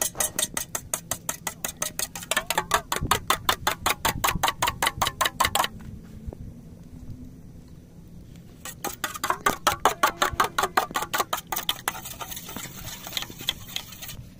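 Table knife beating eggs in a stainless steel bowl: rapid clicking of the blade against the metal, about six or seven strokes a second. The clicking stops for about three seconds in the middle, then starts again.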